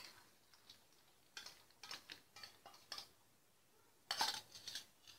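A metal spoon clinking and scraping against a steel ladle as fried cashews, raisins and almonds are spooned out onto payasam in the pan. It is a run of short clinks, with the busiest cluster about four seconds in.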